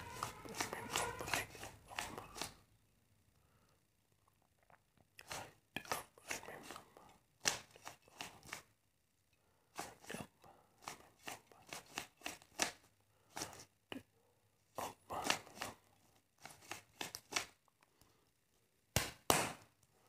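Plastic 3x3 Rubik's cube having its layers turned by hand: quick runs of clicking and clacking turns in bursts, with short pauses between them.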